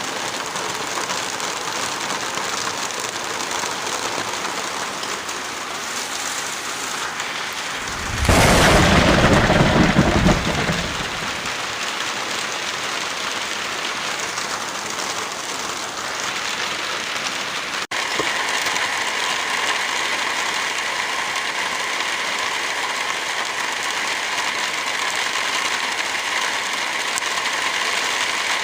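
Steady heavy rain hiss. About eight seconds in, a louder rumble reaching down into the low end swells for roughly two seconds. About eighteen seconds in, a brief dropout, after which the rain sound changes slightly in texture.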